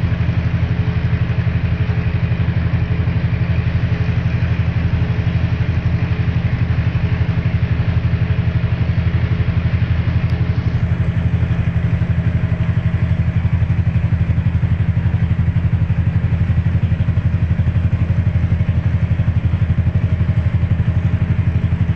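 A boat's engine running steadily at low revs: a constant low drone with a fast, even throb, heard close up from on board.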